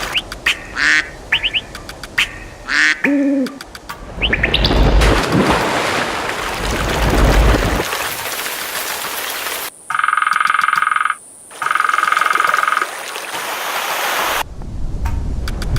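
An edited sequence of nature sounds: short bird chirps and calls in the first few seconds, a rush of running water around the middle, then steady pulsing frog calls that stop and start abruptly.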